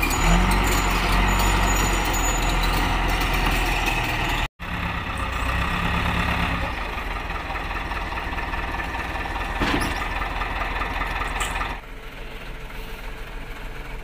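Caterpillar D3C crawler bulldozer's diesel engine running as the dozer moves on a truck's deck, with a few sharp knocks. The sound breaks off abruptly about four and a half seconds in and is quieter after about twelve seconds.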